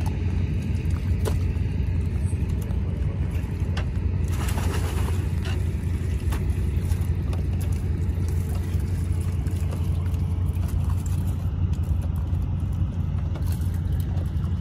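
Steady low motor drone running throughout, with scattered sharp clicks and a short clattering burst about four seconds in as oysters are handled in plastic baskets.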